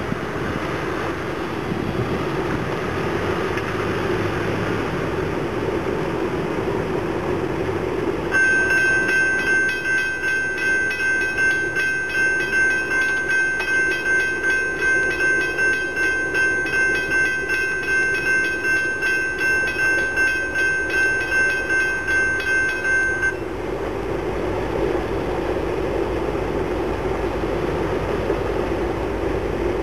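Approaching freight train with a steady low rumble and wind noise. About eight seconds in, a bell starts ringing evenly, almost twice a second, and stops suddenly some fifteen seconds later.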